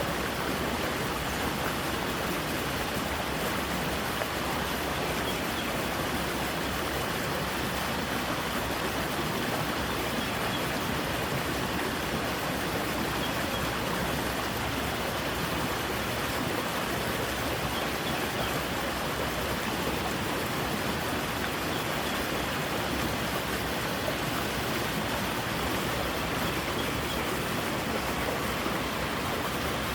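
Creek water rushing steadily over rocks, an even rushing noise that does not change.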